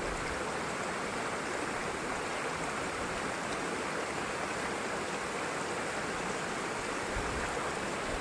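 Steady rush of water at a waterfall: an even, unbroken hiss that does not change.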